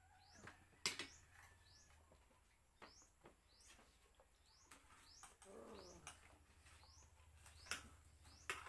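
Faint bird chirping: short rising chirps repeated every second or so, with a few sharp clicks of a spoon or fork against an enamel plate.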